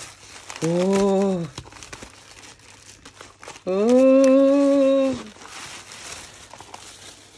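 Pink tissue paper crinkling and rustling as it is pulled open and pushed aside. Two drawn-out wordless vocal exclamations from a woman cut in, one about half a second in and a longer, higher one around the middle; these are the loudest sounds.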